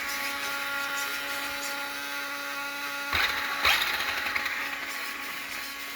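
Small electric cooling fans on an RC car's speed controller and motor whirring at high speed, a steady hum with a few fixed tones. Two brief louder noises come about three seconds in.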